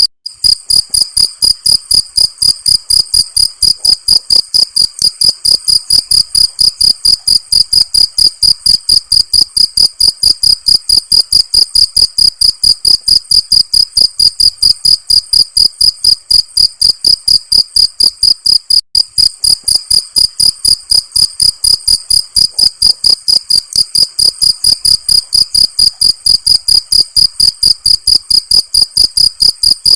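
Cricket chirping steadily in an even, high-pitched rhythm of about four chirps a second, with two momentary breaks, one just after the start and one about 19 seconds in.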